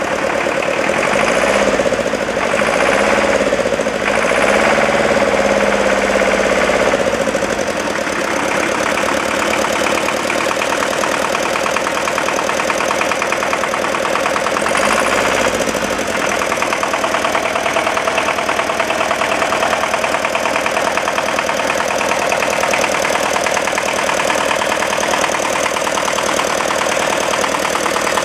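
Restored Deutz 410 diesel engine running with a knocking firing beat, revved briefly a few times in the first seconds and once more about halfway through, otherwise idling steadily.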